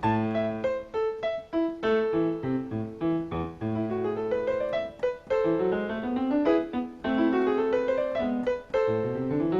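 Solo piano music played after the benediction as a postlude: separate notes and chords, with rising runs of notes about halfway through and again near the end.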